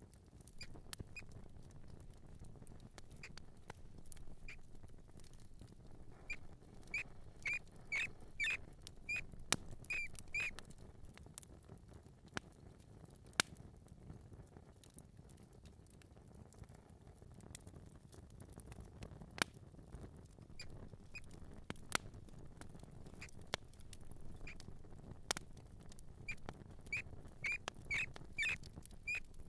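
Mouse squeaking in short high chirps, in two quick bouts, the second near the end, with scattered sharp clicks of scurrying feet over a low steady hiss.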